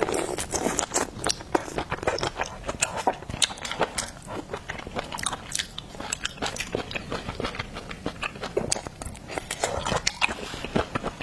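Close-up chewing and biting of seafood, with many crisp crunching clicks in quick, irregular succession.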